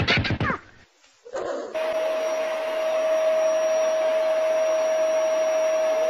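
A short pitched sound breaks off at the start. After a moment of silence, a steady motor drone with one constant whine comes in, like a small electric appliance running.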